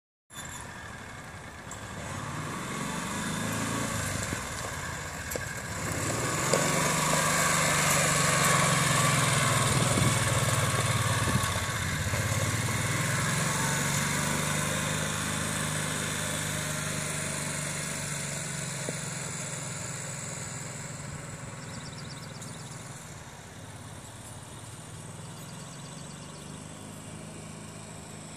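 Engine of a small side-by-side utility vehicle running as it drives up, passes close by about eight to eleven seconds in, and then pulls away, fading steadily.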